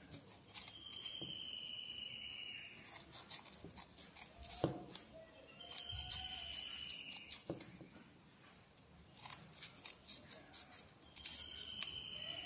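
Scissors snipping folded red craft paper in short runs of quick cuts, cutting a fringe. A thin high whistle-like tone comes three times, about two seconds each, behind the snips.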